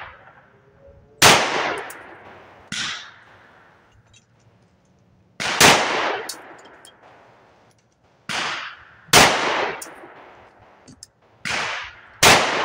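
Bul M5 9mm pistol firing a slow string of single shots, about one every one to three seconds, some shots louder than others, each followed by a short ring-out.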